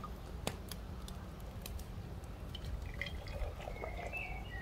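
Hot pine cone syrup being ladled into glass jars: soft liquid dripping and filling, with a few sharp light clicks.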